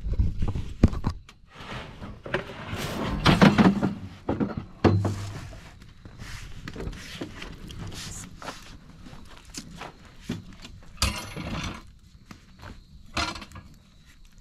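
A Flash Furniture one-piece plastic-top folding table with metal legs being handled and set up: irregular knocks, thunks and scrapes of the table, with footsteps.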